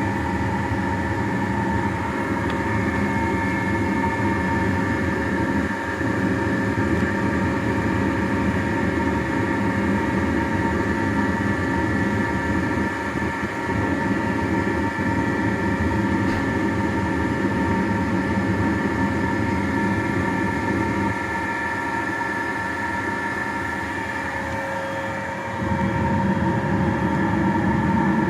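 Gildemeister NEF CT40 CNC lathe running: a steady mechanical hum with several steady whining tones over it. It eases off slightly about three-quarters of the way through, then gets louder again a few seconds before the end.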